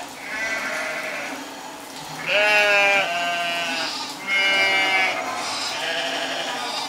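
Sheep bleating: about five wavering bleats one after another, some overlapping, the loudest starting about two and a half and four and a half seconds in.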